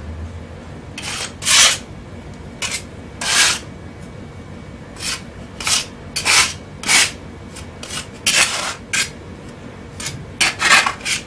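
Metal putty knife scraping and rubbing across a terrazzo floor as it mixes white wall-putty powder, in a dozen or so short, irregular strokes.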